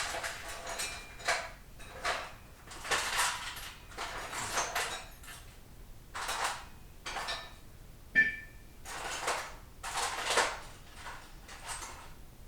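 Small metal transmission parts and hand tools being handled and rummaged through: a series of short scrapes, rustles and clinks about a second apart, with a brief metallic ping about eight seconds in.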